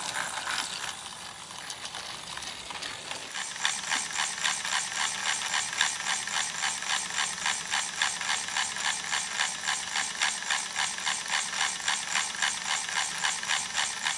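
Motorised TrackMaster Thomas toy engine running, its plastic gears making a steady ratcheting click about four times a second that starts some three seconds in after a quieter stretch.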